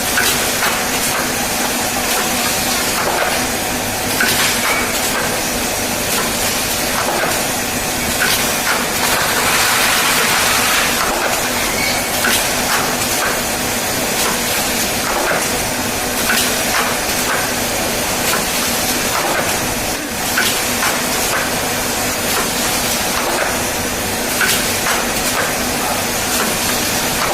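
QSJ5040A shrink-film bottle bundling machine running: a steady, loud hiss of rushing air with a low hum, broken by repeated short clicks and knocks from the machine's mechanism.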